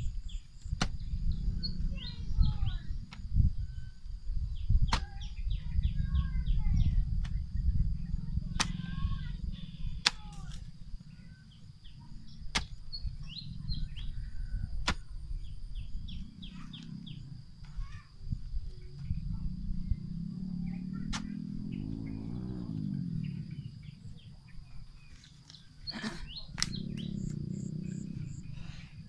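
A long-handled digging tool chopping and scraping into damp clay soil, giving repeated dull thuds and occasional sharp knocks, while small birds chirp.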